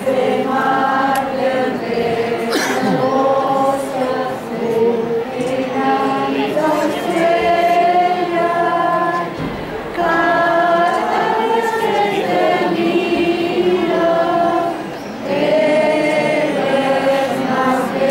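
A choir of voices singing a devotional hymn unaccompanied, in long sung phrases with short pauses between them.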